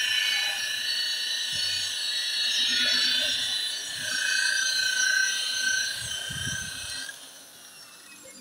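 Electric rotary polisher spinning a buffing pad over car paint during rubbing-compound polishing, a high-pitched whine that wavers a little in pitch. It stops about seven seconds in.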